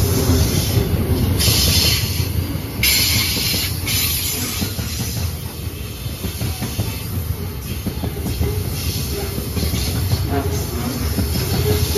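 Loaded grain hopper wagons of a freight train rolling past on a curved track: a steady low rumble of wheels on rail, with bursts of high wheel squeal that are loudest between about one and a half and four seconds in.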